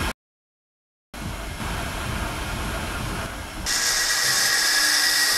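Angle grinder grinding steel, a steady high whine with hiss, coming in about two-thirds of the way through and the loudest sound. Before it, a quieter machine runs steadily: the line boring rig cutting the loader's frame articulation bores.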